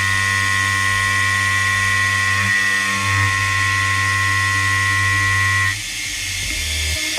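CNC machining centre's end mill trochoidal-milling a slot in a steel block: a steady high-pitched whine over a cutting hiss and low hum. The whine stops about six seconds in, leaving a quieter running sound.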